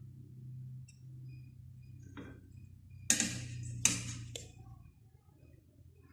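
Cookware clanking as the hot string hopper steamer is handled: a few sharp knocks, the two loudest about three and four seconds in, over a steady low hum.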